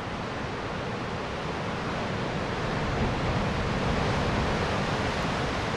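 Ocean surf: a steady rushing of breaking waves that grows a little louder over the first three seconds.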